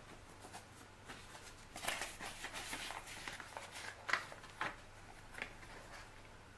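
Paper rustling and scraping as small notepad sheets are slid into a cardstock pocket of a scrapbook album and the pages are handled: a run of rustles about two seconds in, then a few brief ones.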